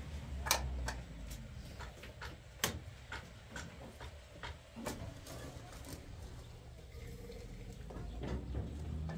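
A run of sharp, irregular taps and clicks, more than a dozen over about five seconds, over a low steady hum.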